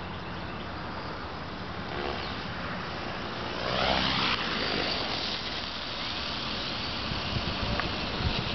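450-size RC helicopter descending in an autorotation, its main rotor blades whooshing. The sound swells and then drops in pitch as it sweeps close past about four seconds in, before the helicopter settles onto the grass.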